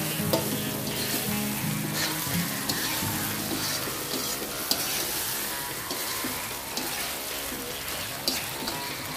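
Tofu stir-fry in oyster sauce sizzling in a wok as a spatula stirs it, with a steady hiss and a few sharp clicks of the spatula against the pan.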